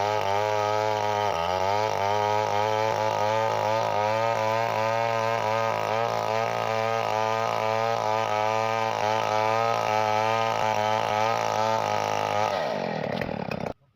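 Chainsaw engine running steadily, its pitch wavering slightly and regularly. Near the end the pitch drops as it slows, then the sound cuts off abruptly.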